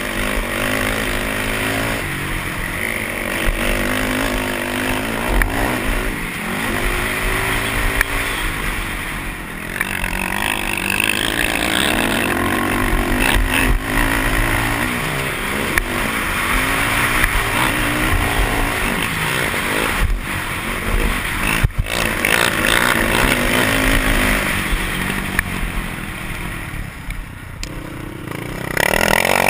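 Racing quad's engine heard from a camera mounted on the quad, revving up and down as the rider works the throttle over the track, with a rushing noise over the microphone. A couple of sharp knocks come about two-thirds of the way through.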